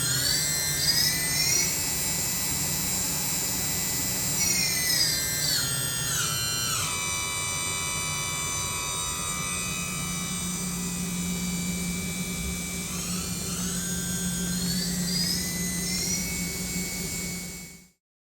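2022 YCM JC16 CNC vertical machining center's spindle whining over a steady low hum as it speeds up, holds, slows down, holds, then speeds up again. The sound cuts off abruptly near the end.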